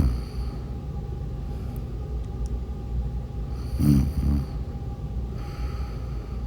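A sleeping person snoring: one snore in two quick pulses about four seconds in, over a steady low background rumble.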